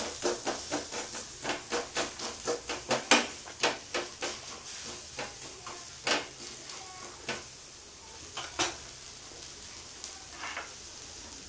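Spatula pressing and tapping on a rice-flour pitha in a frying pan: a quick run of light taps, about three a second, that thins out after about four seconds and stops about two-thirds of the way through. A faint sizzle of the frying batter continues underneath.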